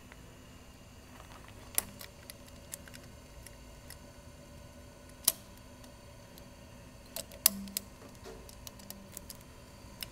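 Scattered sharp clicks and knocks of hands handling the parts under an industrial sewing machine: a handful over several seconds, the loudest about five seconds in and a cluster about seven seconds in, over a faint steady hum.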